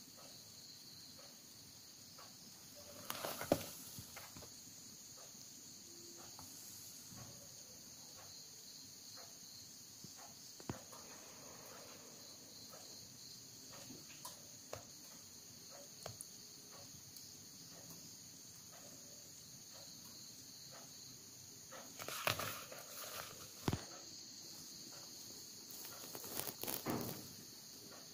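Faint rustling and handling of book pages as they are turned and moved under the phone, a few short bursts with small clicks between, over a steady high-pitched hiss.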